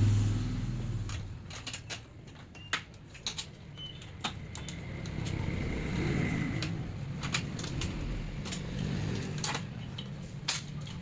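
Scattered sharp clicks and light knocks of printer parts and cable connectors being handled while an HP LaserJet M1005 is taken apart, over a low steady hum. A deeper rumble fades out within the first second.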